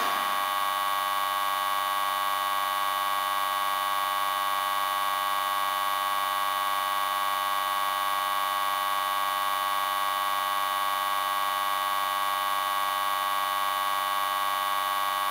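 Miniature battery-powered DC water pump running: a steady, unchanging electric buzz with a strong high hum, starting abruptly as it is switched on.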